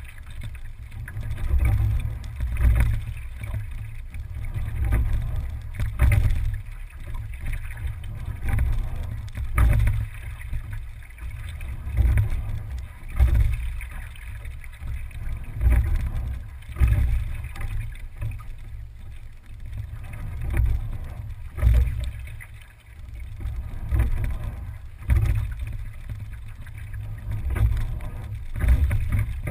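Single scull being rowed at a steady pace: a low rumble of the hull through the water that swells with each stroke, about one stroke every three and a half seconds, with a short knock at each peak.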